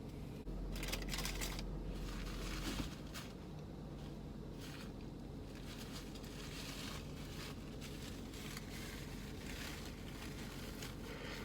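Faint, intermittent rustling and crinkling of a fast-food chicken nugget package, over a steady low hum inside a parked car.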